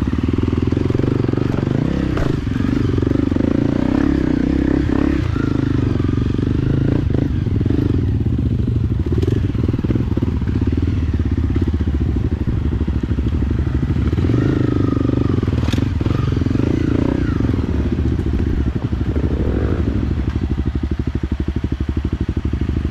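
Motorcycle engine running steadily while being ridden, with a few short knocks and rattles from the rough track.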